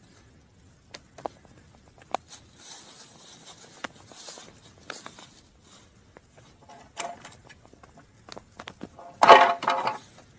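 Donkeys moving about on dry leaves and dirt: scattered hoof steps, knocks and rustling. A short, loud, pitched call about nine seconds in is the loudest sound.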